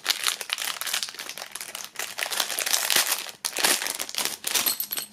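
Small clear plastic bag crinkling as it is handled and opened, a continuous irregular crackle with a brief lull a little past the middle.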